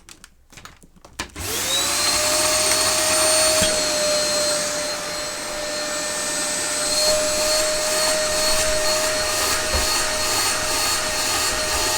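Dyson DC03 upright vacuum cleaner switched on after a few clicks. About a second in, the motor spins up and then runs at a steady, level whine.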